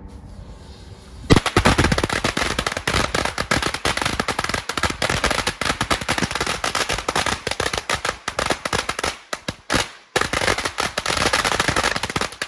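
A string of firecrackers going off: a loud, dense, rapid crackle of bangs beginning about a second in, with a brief lull near the end.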